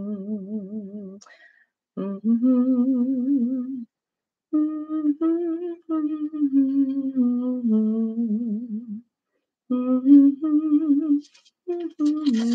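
A woman humming a slow tune with vibrato, in phrases of two to four seconds separated by short breaths.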